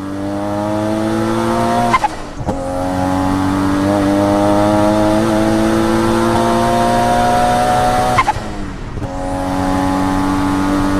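Nissan RB25 turbocharged 2.5-litre straight-six accelerating hard through the gears: the engine note climbs steadily in pitch, with a sharp crack and a brief dip at each of two gear changes, about two seconds and eight seconds in, after which the note starts lower and climbs again.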